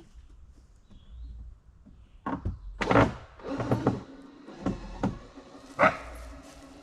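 A handful of sharp knocks and thuds, about six between two and six seconds in, over a low steady rumble.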